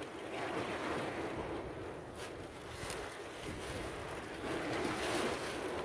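Sea waves washing in, swelling twice, with wind rumbling on the microphone.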